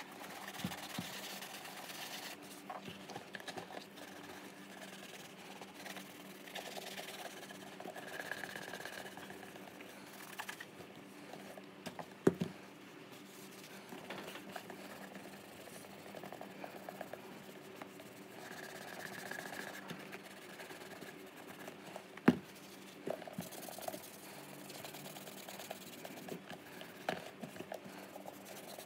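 A cloth rubbing and buffing the leather of a White's Semi Dress boot, a soft scrubbing that comes and goes with the strokes. Two sharp knocks, about ten seconds apart, are the loudest sounds, and a faint steady hum runs underneath.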